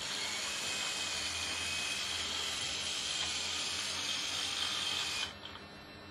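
A small wheeled robot's electric drive motors and gears running with a steady high whine as it carries out a commanded move of set angle and length. The whine cuts off suddenly a little after five seconds in, when the move ends.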